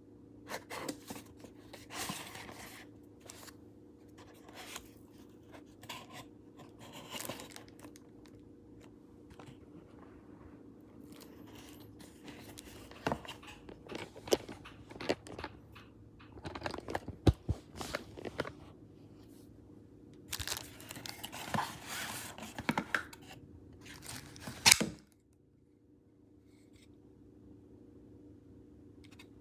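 Hands handling and unpacking things: crinkling, scraping and sharp clicks in irregular bursts over a faint steady hum, dying away about four seconds before the end.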